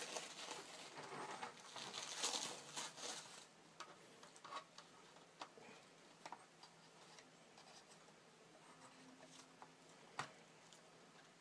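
Soft rustling of masking tissue and tape being peeled off a painted plastic model tank, strongest over the first three or four seconds. After that come a few faint clicks and ticks as the plastic model is handled.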